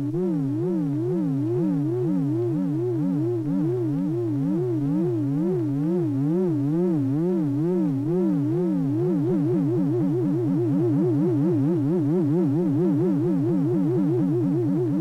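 Electronic synthesizer tones: two low tones, one about an octave above the other, both warbling up and down in pitch about twice a second. About nine seconds in, the warble speeds up to roughly twice as fast.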